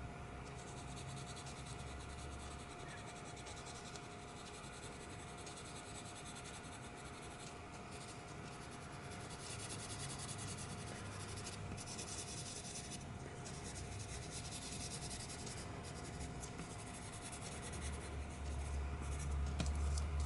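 Pencil scratching on paper as small detail strokes are drawn, in short uneven patches. A low rumble builds near the end.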